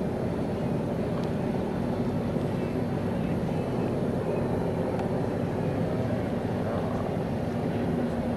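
A steady, distant engine drone over a noisy outdoor background.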